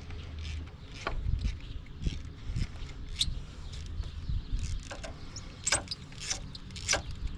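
Hand tools working on exhaust manifold bolts: irregular metallic clicks and knocks from a ratchet wrench and tools striking metal.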